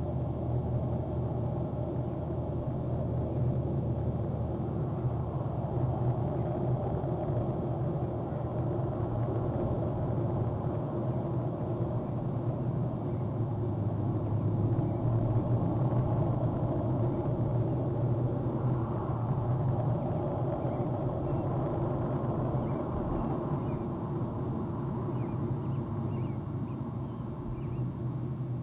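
Steady low rumble of outdoor shoreline ambience through a webcam microphone, swelling slightly midway and easing again, with a few faint short high sounds in the second half.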